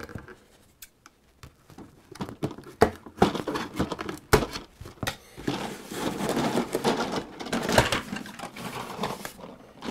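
Scissors snipping a plastic security strap on a cardboard box, with a sharp snip about four seconds in among small clicks and knocks. Then a longer stretch of cardboard and plastic rustling and scraping as the box is opened and the plastic toy taken out.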